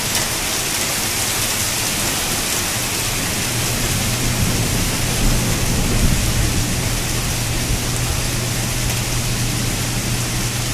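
Steady rush of heavy rain and wind in a thunderstorm. A low rumble comes in about three and a half seconds in and holds.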